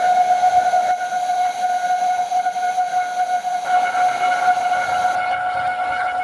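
Vacuum cooking apparatus running with a steady, high-pitched whistling whine and overtones. The tone grows a little brighter about three and a half seconds in.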